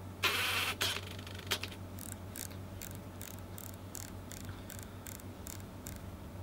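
Sony NEX camera: a brief shutter-like clatter near the start, then the rear control wheel clicking round notch by notch, about two or three clicks a second, as the aperture is stepped from f/29 down to f/2.8.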